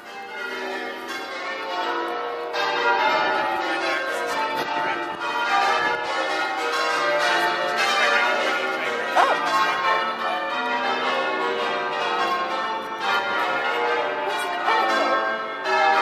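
A ring of church bells being rung in changes, the bells struck one after another in quick succession, their tones overlapping and ringing on.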